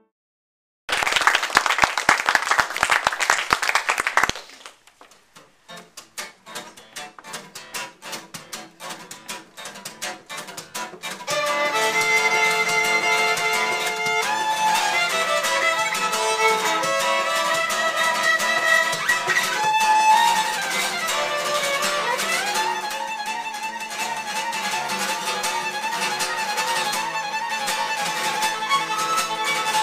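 A short burst of applause about a second in, then an acoustic guitar playing on its own. About eleven seconds in, a bowed violin joins it for a lively violin-and-guitar duet tune.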